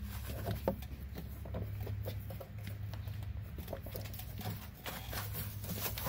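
Irregular small clicks, knocks and scrapes of a plastic coolant overflow tank and its rubber hoses being worked loose and pulled out by hand, over a steady low hum.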